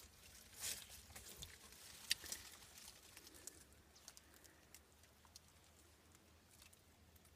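Faint rustling and scraping of a bare hand digging through wet soil, stones and dead leaves to catch a crab, with scattered small clicks; the sharpest click comes about two seconds in.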